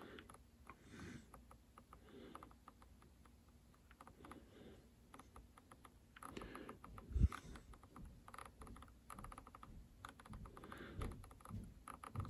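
Spektrum NX8 transmitter's scroll roller clicking faintly in quick runs of small clicks as it is turned to scroll through a menu, with one dull thump about seven seconds in.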